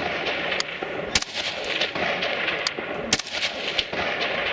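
Rifle shots: two loud reports about two seconds apart, with fainter shots between them, over a steady background hiss.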